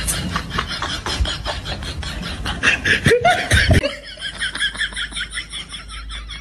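A person laughing in quick, repeated giggles, louder about three seconds in and quieter from about four seconds on.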